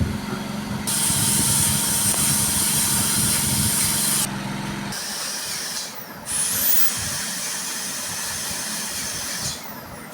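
Dental drill (handpiece) grinding down pointed tooth cusps: a steady high whine with hiss, breaking off briefly about four seconds in and again about six seconds in.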